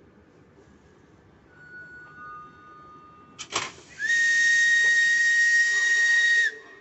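A whistle blown once: a single high, steady note about two and a half seconds long, bending up at the start and down at the end. A short knock comes about half a second before it.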